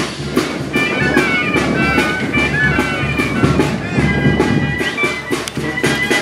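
Background music: wind instruments playing a melody over a steady beat.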